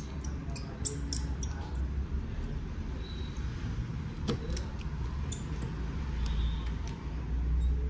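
Scattered small clicks and taps of tools and parts being handled during a phone screen replacement, a few sharper ones about a second in, over a low steady hum.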